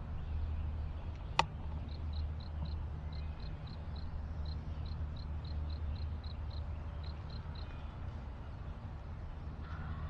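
Quiet outdoor ambience: a steady low rumble under short runs of high, even chirps, about four a second. There is one sharp click about a second and a half in.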